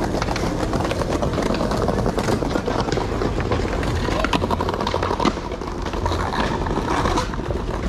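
Skateboard wheels rolling over paving stones, with the knocks and clacks of boards, and people talking in the background.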